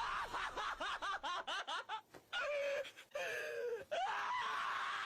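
A high-pitched voice making a quick run of short rising-and-falling yelps, then longer drawn-out calls that end in a long steady wail starting about four seconds in.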